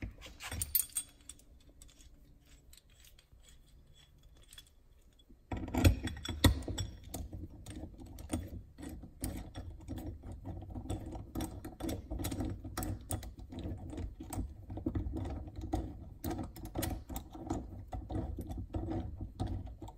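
Rapid metal clicking and rattling as a bearing puller's bolts and screw are threaded and turned by hand on a brass water-pump bearing housing, snugging them up. It is near quiet at first and starts about five seconds in.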